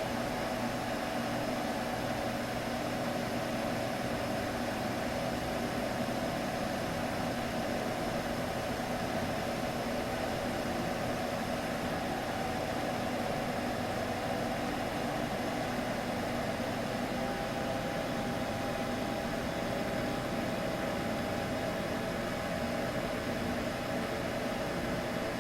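Steady, unchanging hum with a hiss over it, played as a soothing baby-sleep sound. A faint steady higher tone joins about two-thirds of the way through.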